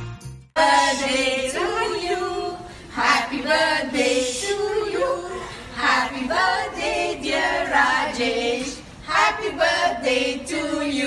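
A small group of women singing together without accompaniment, several voices overlapping.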